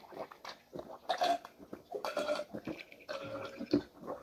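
Two people gulping and swallowing iced drinks from glass mugs, in a run of irregular gulps.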